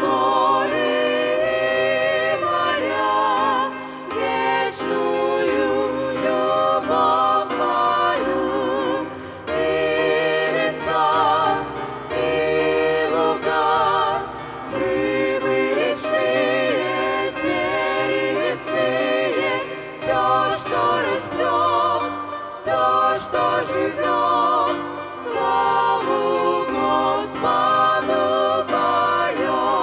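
A mixed group of women's and men's voices singing a worship hymn in harmony into microphones, with marked vibrato and short breaks between phrases.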